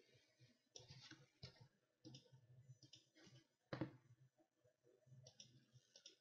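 Faint computer mouse clicks, several scattered ones, the loudest about four seconds in.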